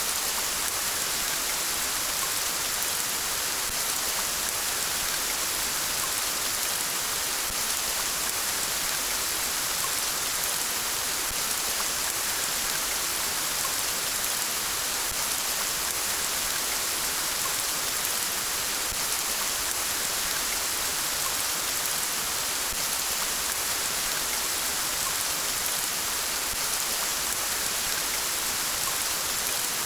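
Steady, heavy rain falling, an even hiss of many drops that does not change, with no thunder.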